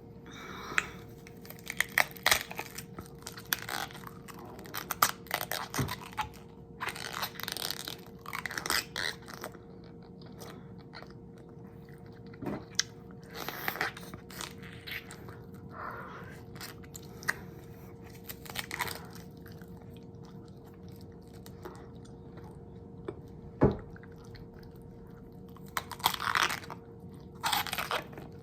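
Close-miked chewing and crunching of food, in bursts of crisp crackling bites separated by quieter pauses, with a sharp single crunch a little after the middle. A faint steady hum runs underneath.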